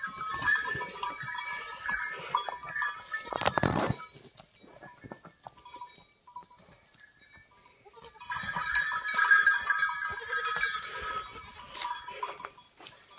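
Bells on fighting bulls clanking and jangling, with a louder burst of sound about three and a half seconds in and a quieter stretch in the middle.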